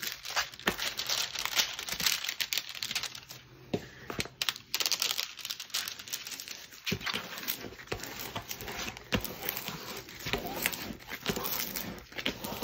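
Plastic cover film on a stiff, glue-coated diamond-painting canvas crinkling and rustling as a plastic paint spreader is pushed across it to smooth out trapped air pockets, in irregular strokes with short sharp crackles.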